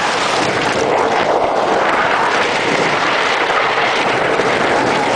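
Roller coaster ride heard from a rider's seat: a loud, steady rush of wind and track noise as the train runs at speed.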